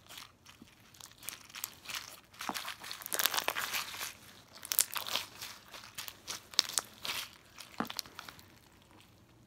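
Crunchy slime made of clear glue and packed with plastic googly eyes, squeezed and worked by hand: an uneven run of crackling crunches and pops, busiest from about three to five seconds in.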